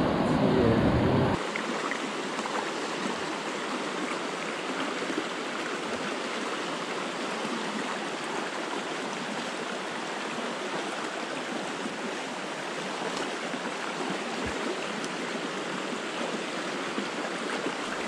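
A small rocky river running steadily over a shallow riffle: a continuous rushing of water. A voice is heard briefly at the very start.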